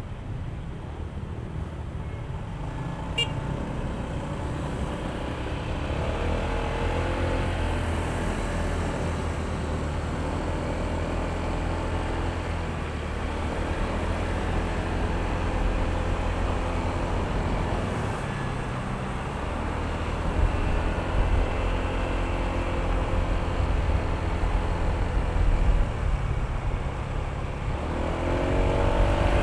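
Honda ADV160 scooter's single-cylinder engine running under way, its pitch rising and falling with the throttle, over a steady rumble of road and traffic noise. The sound builds over the first several seconds.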